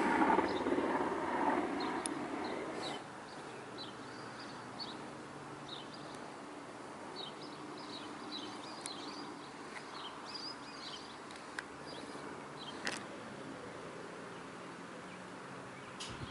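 An engine drone with several steady tones fades away over the first three seconds. After that comes quiet outdoor ambience with small birds chirping in short, high, scattered calls and a couple of faint knocks.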